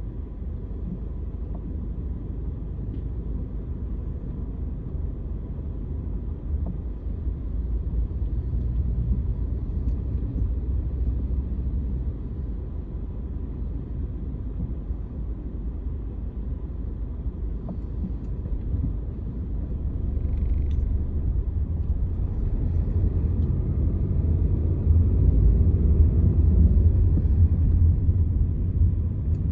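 Peugeot 2008 running with a steady low rumble and irregular low knocking, louder for a while about a third of the way in and again through the last third; the owner recorded it as a knocking fault.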